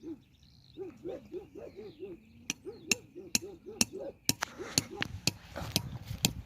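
An animal's short, low calls repeated about three or four times a second, joined about two and a half seconds in by sharp knocks or taps that come quicker and louder near the end.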